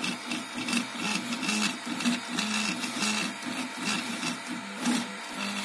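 Stepper motors of a homemade CoreXY 3D printer running during a print: short whining tones that jump in pitch a few times a second as the print head changes moves.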